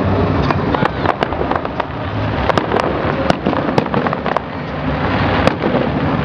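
Fireworks display: shells bursting overhead in a rapid, irregular string of sharp cracks and pops over a constant background din.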